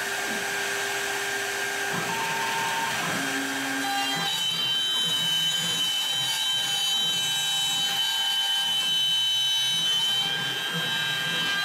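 CNC router spindle running, its small end mill plunging into a hardwood board and starting to mill out a letter. Short whining tones shift pitch as the axes move, and a steady high whine comes in about four seconds in as the cut gets under way.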